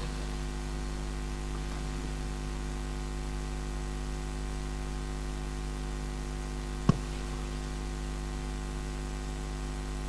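Steady electrical mains hum with a light hiss from the sound system, with one short knock about seven seconds in.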